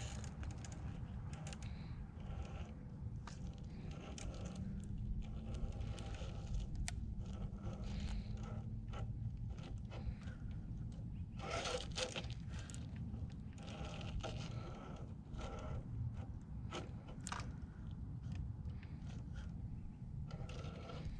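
Traxxas TRX-4 RC crawler's tyres and chassis scraping and crunching over rock, with scattered clicks and a faint brushed-motor hum now and then, under a steady low rumble.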